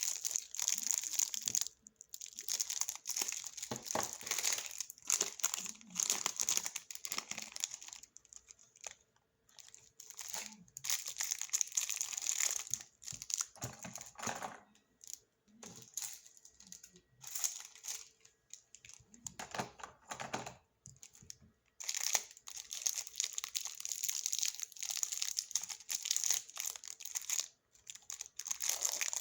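Plastic snack packaging crinkling as it is handled, in irregular stretches of crackling with short pauses between them.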